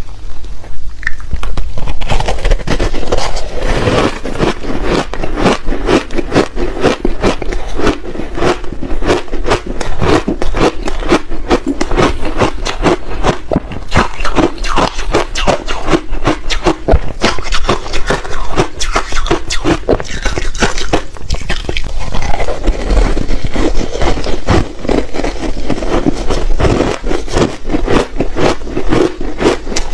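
Close-miked crunching of matcha-powdered ice being bitten and chewed: a dense, unbroken run of sharp cracks and crackles.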